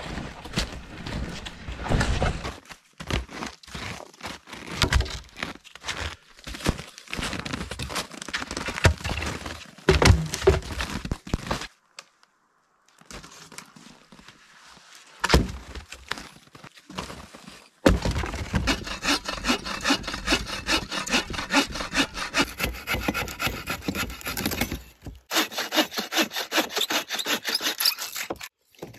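Cracking and crunching as dead standing trees are pushed over and broken, with a heavy thud about ten seconds in. From about eighteen seconds a bow saw cuts through a dry deadwood log in quick, even strokes.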